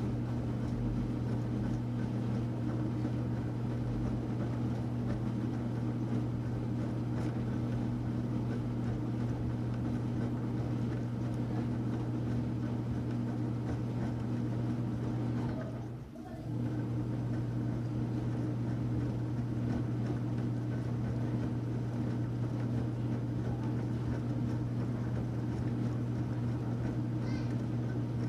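Enxuta Luxo Soft washing machine running with a steady motor hum. About sixteen seconds in the hum drops out for a moment, then starts again.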